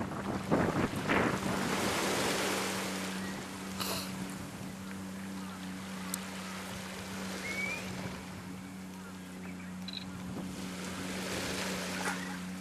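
Surf washing onto a pebble beach, swelling twice, with wind on the microphone and a steady low hum underneath. A few short knocks sound about a second in.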